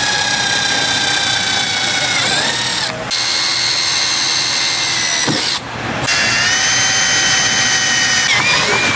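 Milwaukee cordless drill with a step drill bit boring holes through the sheet-metal A-pillar. The motor whine sags in pitch as the bit bites. It stops briefly about three seconds in and again a little before six seconds, then spins up again.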